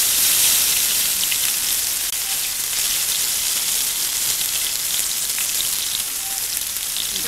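Eggplant slices frying in hot oil in a frying pan: a steady high sizzling hiss with fine crackles.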